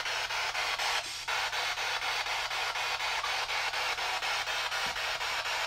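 Spirit box sweeping through radio stations: a steady hiss of radio static chopped into an even, rapid pulse several times a second as it jumps from channel to channel.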